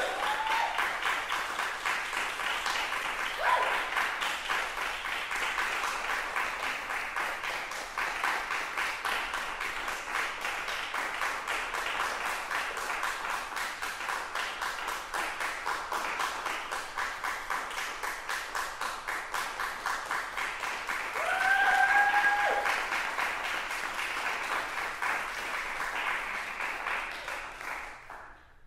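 Concert audience applauding: a dense, steady patter of many hands clapping, with a few brief pitched calls rising out of the crowd, the loudest about twenty-two seconds in. The applause cuts off suddenly near the end.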